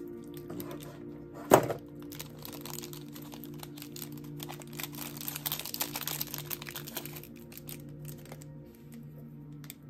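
Packaging being handled: small clicks and plastic crinkling, with one sharp thump about a second and a half in and a denser spell of crinkling in the middle.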